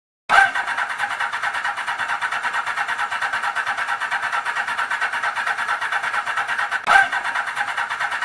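Motorcycle electric starter cranking the engine: a fast, even, chattering whir that starts abruptly, breaks off for a moment near the end and starts again.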